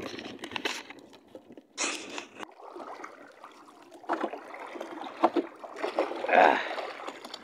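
Paddling a small outrigger canoe through choppy sea: the paddle dips and water splashes and sloshes against the hull, with several louder splashes a second or two apart.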